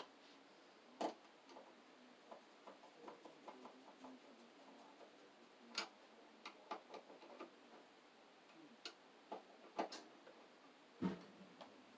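Faint, scattered clicks and light taps of wires and small parts being handled at an open electrical breaker panel. A few stand out, about a second in, near the middle and near the end.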